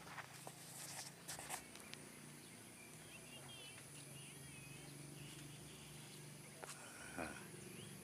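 Rural outdoor ambience: a steady high insect drone, with a few short bird chirps in the middle and some light clicks in the first second or so.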